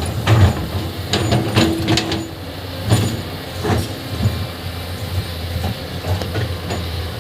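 Hyundai PC210 hydraulic excavator's diesel engine running steadily under load, with irregular knocks and clatters of earth and rock being dug.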